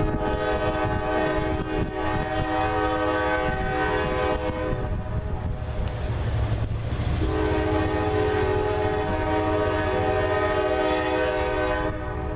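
Norfolk Southern diesel locomotive's multi-chime air horn sounding two long blasts for a grade crossing, the second starting about seven seconds in. A low rumble of the approaching train runs beneath.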